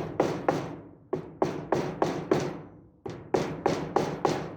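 Hammer tapping over and clinching the protruding points of 1.5-inch staples driven through wooden furring strips: quick sharp strikes about three a second, in runs of several blows with two short pauses.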